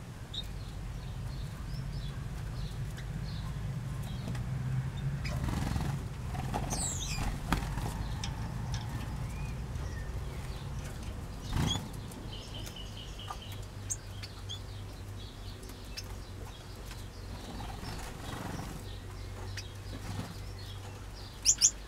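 Small aviary birds, finches and parrots, giving short scattered chirps and calls, with a few brief flutters of wings. A steady low hum runs underneath.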